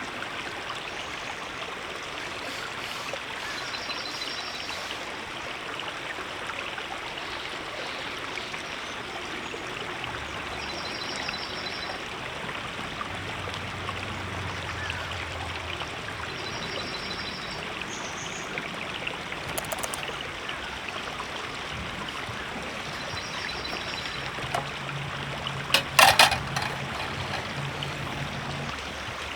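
River water flowing steadily over rocks. Near the end come a few sharp clicks or knocks close by.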